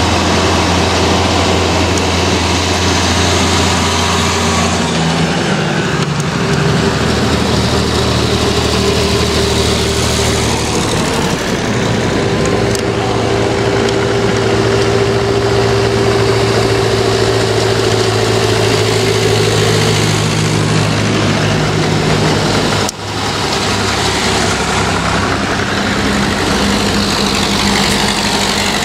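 Farm tractor engines driving past one after another, with a steady engine note that changes every few seconds as each tractor goes by. There is a brief dropout about 23 seconds in.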